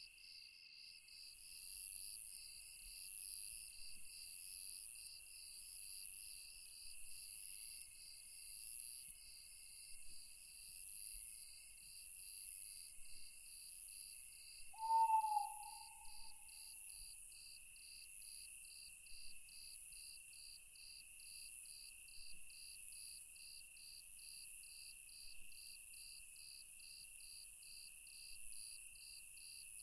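Night forest ambience of crickets and other insects chirping, a layer of quick pulses at about two a second over a steady high drone. About halfway through, an owl hoots once, a single short call that is the loudest sound.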